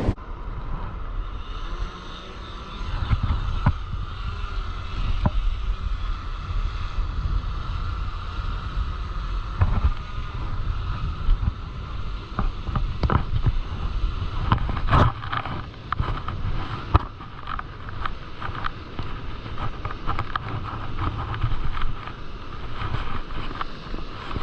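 SwellPro SplashDrone 4 quadcopter in flight, its propellers making a steady hum with slightly wavering pitch. Wind buffets the microphone, with scattered short knocks.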